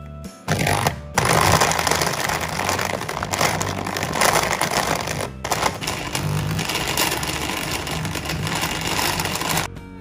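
Stick blender running its chopper-bowl attachment, chopping chunks of dark chocolate. It runs in pulses: a short burst, a long run, a brief stop around the middle, then another long run that stops just before the end.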